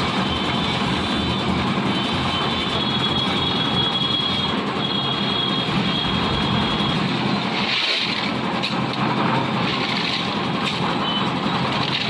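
Lift-type concrete mixer (dhalai machine) running steadily, its engine turning the mixing drum while it is loaded. Thin high tones come and go over the steady noise in the first half.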